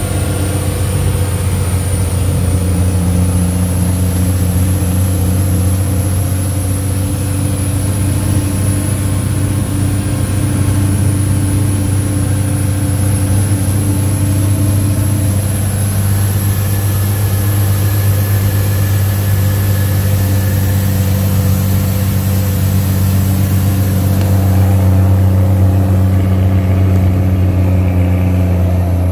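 The diesel engine of a custom Leyland truck with a 411 engine, running steadily under way as heard from the cab, a continuous low drone whose pitch holds nearly constant.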